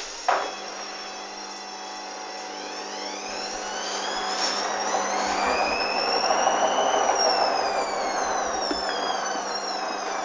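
Hoover Dynamic washing machine's drum motor speeding up, its whine rising in pitch and growing louder, then slowing with the whine falling away near the end. A sharp click comes just after the start.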